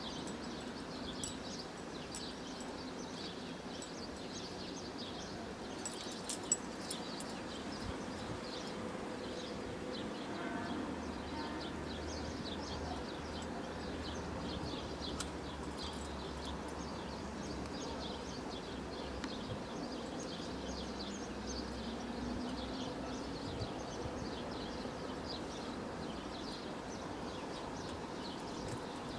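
Outdoor ambience of birds chirping, many short high chirps throughout. A low distant engine rumble comes in about ten seconds in, and a couple of light clicks sound around six seconds.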